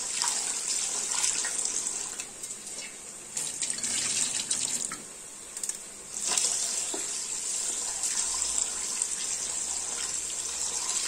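Kitchen tap running into a steel bowl of basmati rice as a hand swishes and rubs the grains in the water to wash them. The water eases off twice in the middle and comes back strongly about six seconds in.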